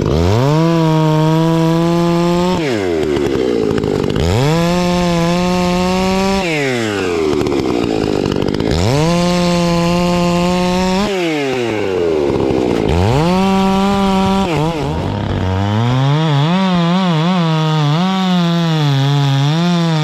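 Stihl MS 661 C two-stroke chainsaw revving up to full throttle and dropping back, about five times, each run held for two to three seconds. In the last and longest run, near the end, the pitch wavers up and down.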